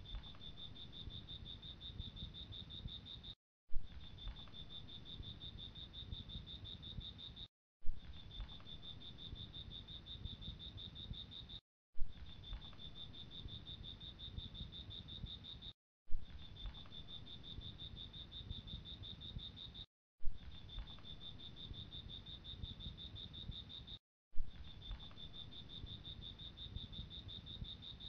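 Steady high-pitched insect trill over a low rumble. It cuts out briefly about every four seconds, and each restart begins with a sharp click.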